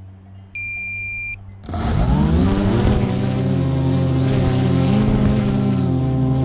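A short electronic beep, then a motor starts suddenly, rises in pitch for about a second and runs steadily at a high level, its pitch wavering slightly.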